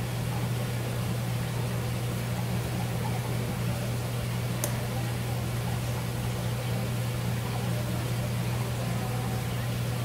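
Steady low mechanical hum, as from a running motor or pump, with one faint sharp tick about halfway through.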